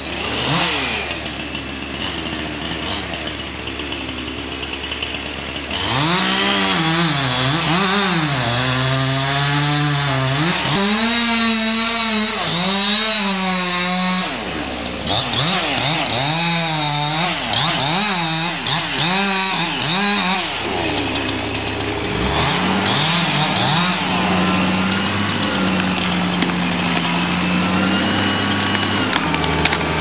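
Chainsaw revving up and down again and again as it cuts into a tree trunk, then running at a steadier speed near the end. A steady drone fills the first few seconds.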